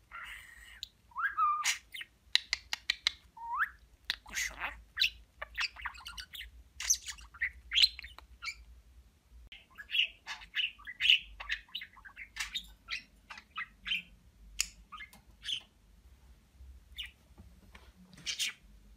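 Male budgerigar warbling: a fast, busy chatter of clicks and short chirps, with a couple of whistled pitch glides in the first few seconds.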